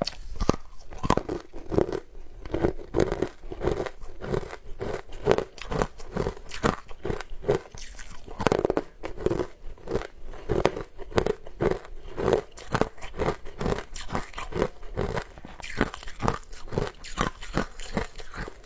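Close-miked biting and chewing of green coloured ice: a steady run of crunches, about two to three a second, with crisper crunching near the end.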